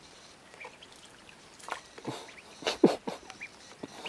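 Ducklings feeding from a shallow dish: a handful of sharp taps and knocks, the loudest nearly three seconds in, with a few faint short high peeps.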